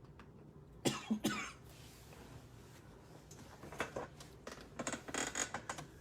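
A man coughs twice in quick succession about a second in, then short runs of clicking on a computer keyboard.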